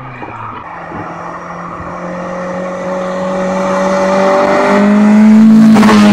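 Mk1 VW Caddy's four-cylinder engine on twin Weber 40 DCOE carburettors, 285 cam and a straight-pipe John Ashley exhaust, under hard acceleration as it approaches. The engine note rises slowly in pitch and grows steadily louder, then passes close by near the end with a brief rush.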